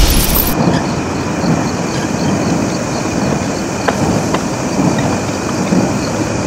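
Funicular car running up its inclined track: a steady rolling noise of wheels on the rails, with a few light clicks in the second half.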